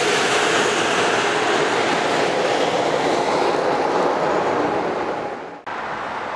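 Amtrak Acela Express trainset rolling past close by, the noise of its rear power car and wheels on the rails fading as it moves away. The sound cuts off suddenly about five and a half seconds in, giving way to quieter station background.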